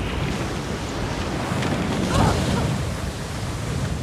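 Water rushing and splashing along a small outrigger sailing canoe as it skims over choppy water, with wind. The noise swells briefly about halfway through.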